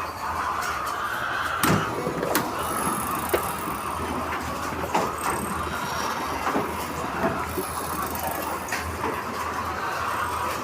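Steady din of a large flock of chickens in a poultry house, with scattered sharp clicks and taps and a low hum underneath.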